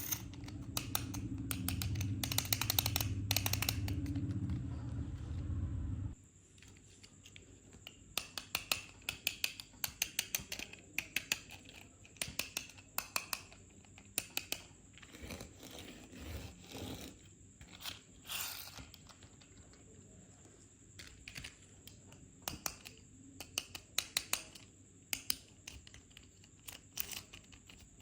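Toy cars and their plastic packaging being handled, giving many sharp clicks and taps in quick clusters. A low steady hum sits under the first six seconds and cuts off suddenly.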